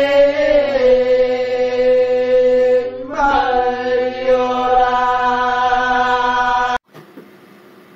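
Māori mōteatea being chanted: long, nearly level sung notes with a short break about three seconds in. The chanting cuts off suddenly near the end.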